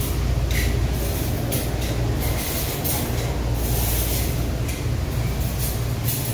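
Steady low mechanical hum, with short bursts of hiss coming and going about once or twice a second.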